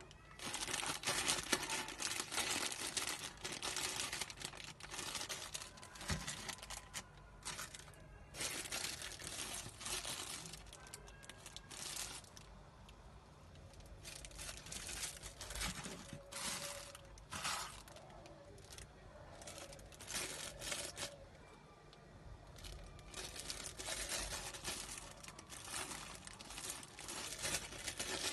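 Clear plastic packaging bags crinkling in irregular bursts as the bagged rear-view camera and coiled cables are handled, with a few short quieter pauses.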